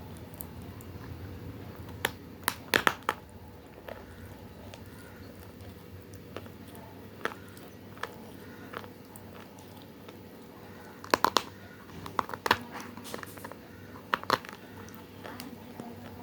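Multani mitti (Fuller's earth clay) chunks bitten and crunched, in short clusters of sharp dry cracks with pauses between them, over a steady low hum.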